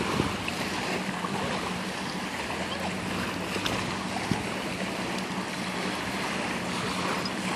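Small waves washing and lapping on a sandy shore with wind on the microphone, over a steady low hum.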